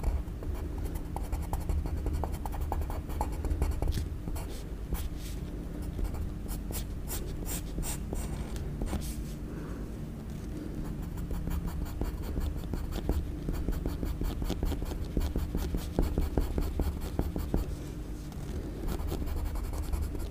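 Pencil scratching across paper in quick, irregular short strokes as lines are sketched, over a low steady hum.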